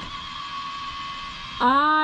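Electric roof vent fan in a campervan ceiling running, a faint steady whine with two thin high tones. An excited voice cuts in near the end.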